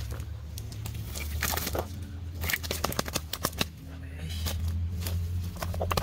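Nylon cast net rustling and crackling as hands pull at its mesh to free fish caught in it, in a scatter of short sharp clicks, over a steady low hum.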